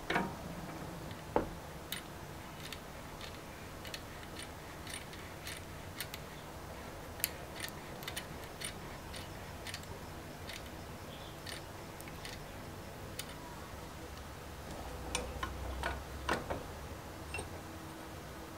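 Small dry clicks, roughly two a second, as a spark plug is twisted back and forth in a hole in a wooden block. A few louder knocks of the plug and hand against the wood come near the start and again near the end.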